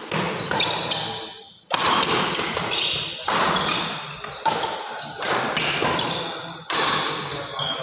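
Badminton rally: a quick series of sharp racket strikes on the shuttlecock, each echoing briefly in the hall, with short squeaks of shoes on the wooden court floor between the hits.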